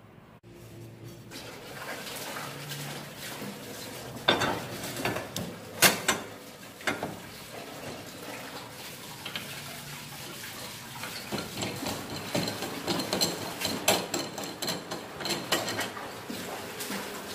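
Irregular metallic clinks, knocks and scraping as a metal workpiece is laid on a miter saw's table and fence and the saw's screw-down hold-down clamp is tightened on it; the blade's motor is not running.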